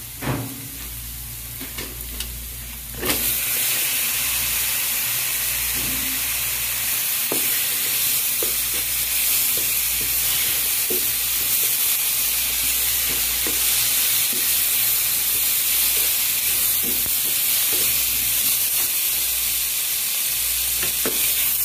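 A wooden spatula stirs fried shallots and spices in a hot non-stick pan, clicking against it. About three seconds in, chopped tomatoes go into the hot oil and a loud, steady sizzle takes over. The spatula knocks against the pan now and then as the tomatoes fry.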